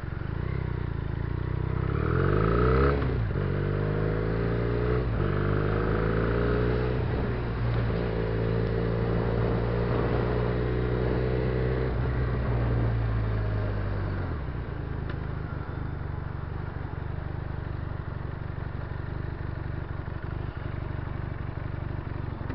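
Benelli TNT300/BN302 300 cc parallel-twin motorcycle engine pulling away, its pitch climbing with upshifts about three and five seconds in, then holding fairly steady. About fourteen seconds in the engine note falls and drops away, leaving steady wind and road noise.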